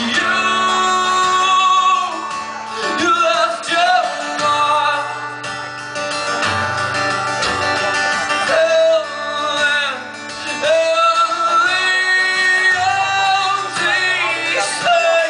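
A man singing live to his own acoustic guitar, the voice held in long, sliding notes over the chords.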